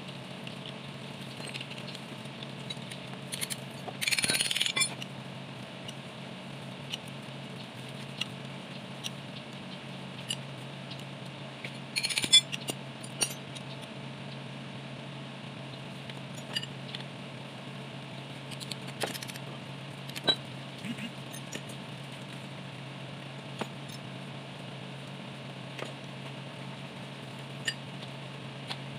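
Metal hand tools, a wrench and socket extension, clinking and clattering against a diesel tractor engine block as it is worked on. The clinks come scattered, with a short rattling clatter about four seconds in and a sharper clink around twelve seconds, over a steady low hum.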